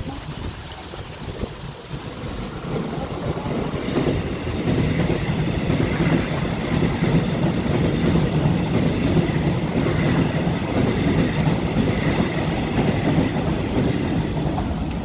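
Korail express electric multiple-unit train passing through a station without stopping, its rumble growing over the first few seconds and then staying loud, with a clatter of wheels over the rails.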